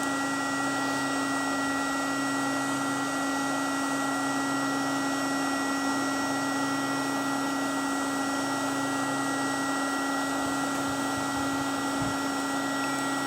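Looft Lighter electric charcoal lighter running with its button held, its fan driving superheated air into charcoal to light it: a steady blowing hiss with a constant whine.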